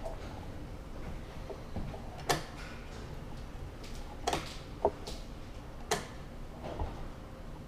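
About five sharp clacks, spread unevenly: chess pieces set down on a wooden board and the buttons of a mechanical chess clock pressed in turn as the two players move in a fast game.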